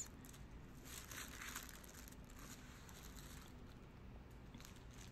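Faint crinkling and rustling of plastic pen packaging being handled, strongest about a second in.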